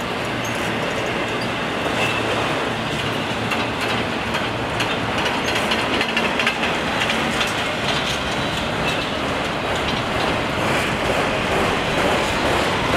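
Freight train of enclosed autorack cars rolling past: a steady rumble of steel wheels on rail with rapid clicking over the joints, and a faint wheel squeal now and then.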